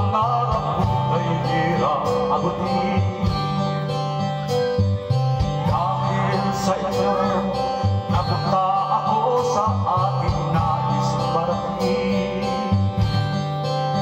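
Karaoke song: a guitar-led backing track with bass and a steady beat, and a man singing along through a handheld microphone.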